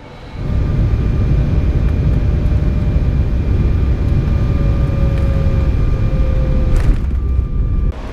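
Jet airliner heard from inside the cabin while rolling on the runway: a loud, steady rumble with a faint whine that slowly falls in pitch. The rumble drops off suddenly near the end.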